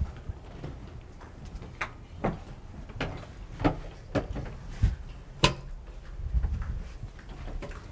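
Several sharp clicks and knocks at uneven intervals, from small objects being handled and set down while communion is got ready.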